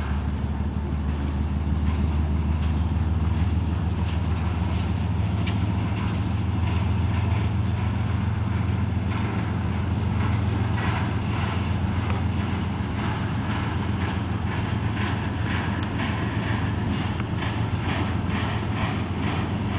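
Union Pacific work train of flatcars rolling slowly past, with a steady low engine drone. From about halfway through, a regular run of clicks and knocks from the passing cars comes in, about one to two a second.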